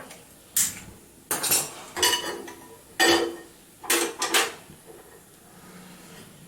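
Metal cooking pots and utensils clanking against each other, about eight sharp ringing knocks over the first four and a half seconds.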